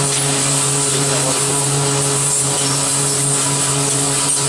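Electrically driven Protem BB pipe bevelling machine running as its rotating tool head machines the end of a thick-walled steel pipe. It is a steady hum with a hiss over it.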